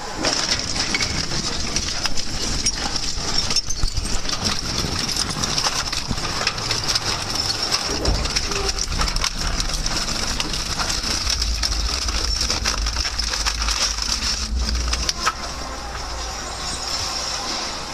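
A load of metal bicycles being crushed in a crusher: their frames and wheels crunch, clink and snap over a steady machine noise. A deep rumble from the machine comes in about 8 seconds in and runs on.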